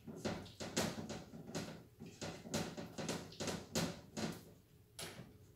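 A spoon beating cream cheese and melted white chocolate in a glass bowl: repeated scraping and clacking strokes against the glass, about two to three a second, stopping about five seconds in.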